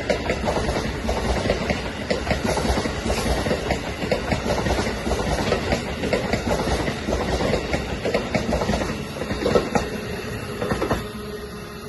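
Amtrak Amfleet passenger cars rolling past at low speed, their wheels clicking over the many rail joints in freshly replaced track. The rumble drops away sharply near the end as the last car clears.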